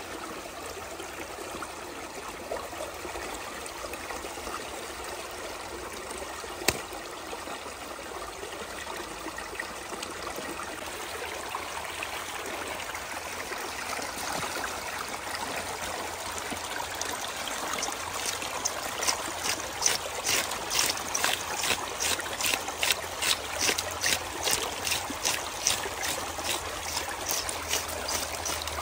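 Small stream of water trickling and flowing steadily. About two-thirds of the way through, a quick, regular stroking sound joins in and grows louder, with a single sharp click about seven seconds in.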